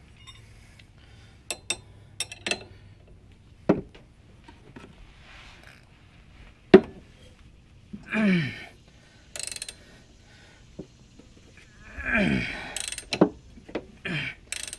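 Metal clicks and clanks of a wrench working loose the top lock nut of a rear shock absorber, in scattered short strokes with one sharp knock midway. Two brief voice sounds come in near the middle and toward the end.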